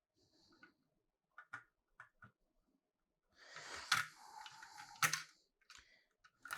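Small computer parts being handled: a few light clicks, then a stretch of rustling from about halfway in, with two sharp clicks a second apart.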